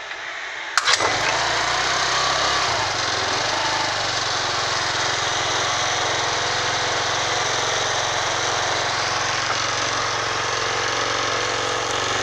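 Honda scooter kick-started: a sharp clack from the kick-start lever about a second in, then the engine catches, revs up and back down, and settles into a steady idle.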